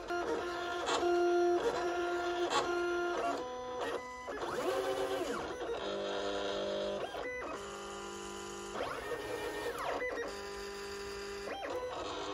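Silhouette Cameo cutting machine cutting a sheet of kraft card: its motors whine in several steady pitched tones that glide up and down each time the blade carriage and feed rollers start, stop or change direction, over and over.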